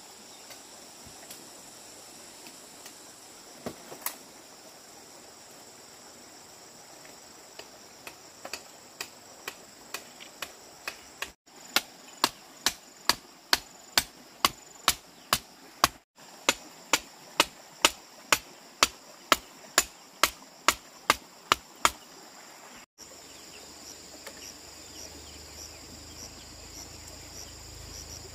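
A hand tool striking over and over at about two blows a second, faint at first, then loud and even, stopping about three-quarters of the way through. Crickets or other insects chirr steadily behind it.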